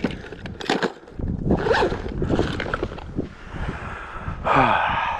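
Scraping and rustling of a backpack and fishing gear being handled, with a few sharp knocks and a louder burst of rustling near the end.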